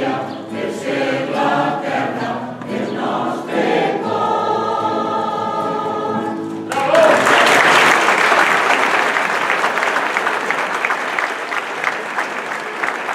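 Choir singing the closing phrases of a habanera, ending on a long held chord that cuts off sharply about seven seconds in, followed at once by audience applause.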